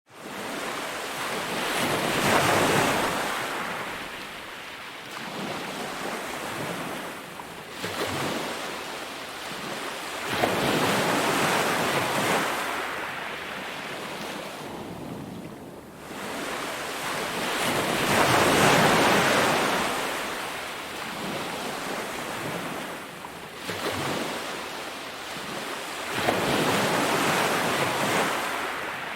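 Sea waves breaking on a beach: the surf rushes in and draws back in slow swells, the largest about every eight seconds with smaller waves between.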